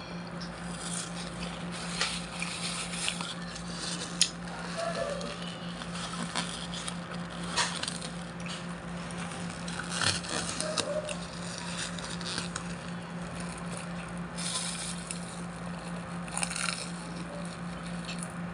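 Close-up eating sounds: chewing and biting into a fried banana turon, with its clear plastic wrapping crinkling and scattered clicks and rustles as it is handled. A tissue is rubbed across the table partway through, and a steady low hum runs underneath.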